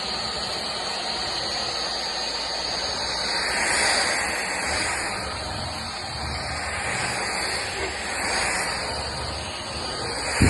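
Powerffy N10 cordless stick vacuum running, a steady rush of air with a high motor whine, swelling briefly twice.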